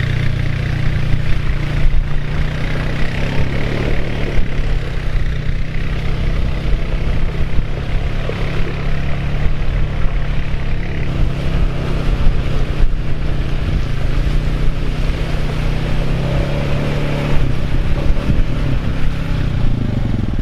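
Honda Foreman quad bike's engine running as it drives away along a muddy track through a deep puddle and then comes back.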